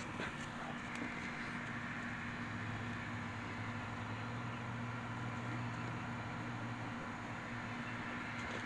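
Steady low mechanical hum over a faint even hiss of outdoor background noise, with a deeper layer to the hum from about a second in until about seven seconds in.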